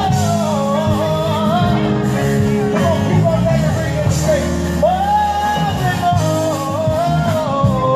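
A singer performing a song over band accompaniment, the melody bending between phrases and holding one long note about five seconds in.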